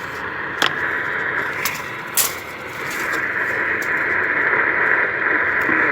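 Radio static: a steady hiss from a radio receiver with no program audio, broken by a few sharp clicks.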